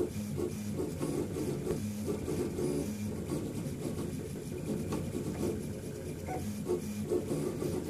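Stepper motors of a RepRap Prusa i3 3D printer driving the print head and bed through an empty test print: a buzzing, tuneful whine that steps up and down in pitch every fraction of a second as the axes change speed and direction.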